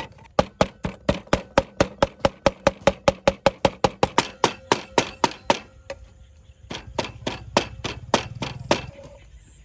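Cleaver mincing meat on a wooden cutting board: fast, even chops at about five a second. The chopping pauses for about a second, picks up again, then stops shortly before the end.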